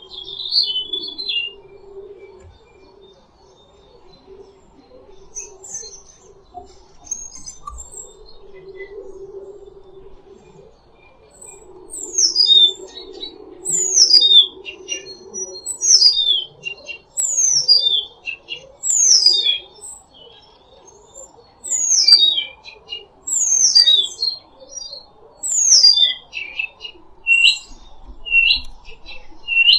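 Songbird singing: a few faint chirps at first, then a loud series of steeply falling whistled notes, about one a second, ending with a few short hooked notes. A faint steady low hum runs underneath.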